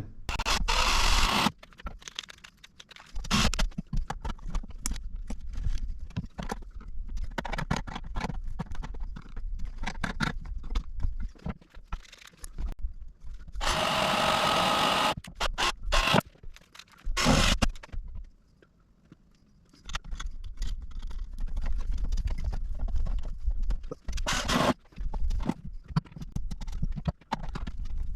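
Hardware being fitted to a metal forge shell: intermittent metal scraping and clanking of bolts and tools, with short power-drill runs, the longest about two seconds near the middle.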